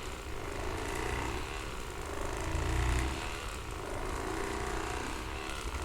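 Handheld electric massager running, a steady, rapidly pulsing mechanical buzz that grows louder for a moment about two and a half seconds in.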